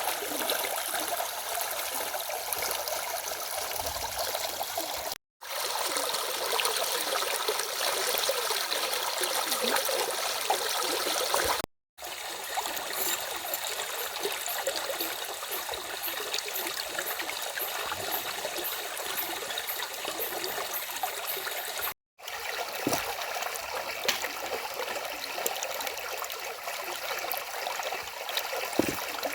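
A stream flowing with a steady rush and trickle of water. It is cut three times by a brief moment of silence.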